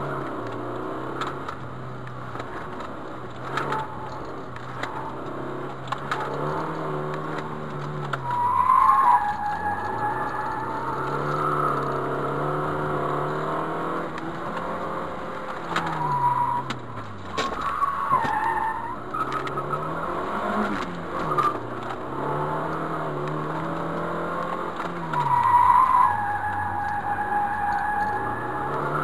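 Car engine revving hard, its pitch rising and dropping again and again as it accelerates and brakes through a course of tight turns, with the tyres squealing loudly in several of the turns.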